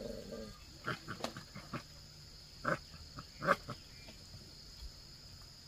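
Puppies making a handful of short yelps and grunts, the loudest two close together midway through.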